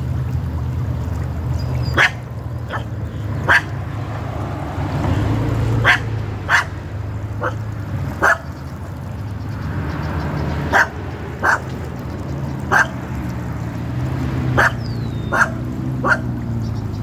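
A dog barking: about a dozen short single barks at irregular intervals, sometimes in quick pairs, over a steady low rumble.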